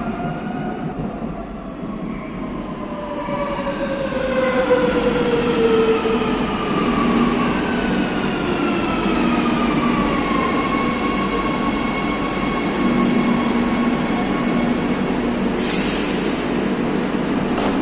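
Madrid Metro train pulling into the platform and braking: a whine that falls steadily in pitch, with wheel squeal, over the first ten seconds or so. It then settles into a steady hum once the train has stopped, with a short burst of hiss near the end.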